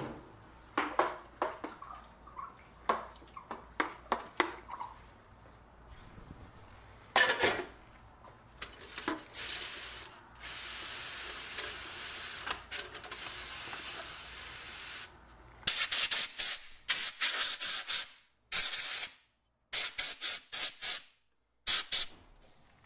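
A hand trigger spray bottle squirting cleaner onto small toy-truck parts in a wire basket, in many quick, sharp bursts of spray in the second half. Before that come a few light clinks and knocks of the parts and basket being handled, and a steady hiss lasting several seconds in the middle.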